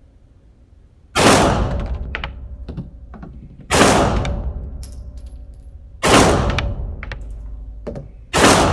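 Taurus G3 pistol fired four times in slow, aimed succession, about two and a half seconds between shots. Each shot rings out and dies away over about a second, with small clicks between the shots.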